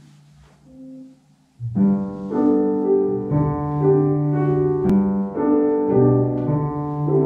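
Grand piano playing a solo introduction in slow, sustained chords, starting about one and a half seconds in after a near-quiet opening; the cello has not yet come in.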